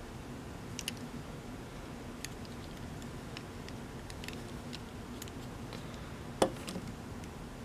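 Sparse light clicks of an old metal Best O' Luck No. 20 baitcasting reel being handled, then a sharper knock about six and a half seconds in as it is set down on a wooden workbench, with a faint steady hum underneath.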